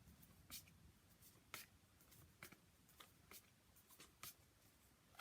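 Faint, quick swishes of cardboard phonics flashcards being flipped over one after another, about eight in five seconds at an uneven pace, with quiet room tone between.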